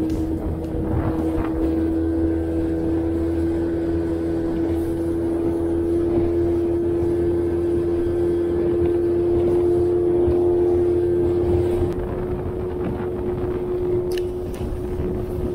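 Small motorboat's engine running steadily under way, a constant tone that creeps slightly higher in pitch, over a low rumble that eases about twelve seconds in.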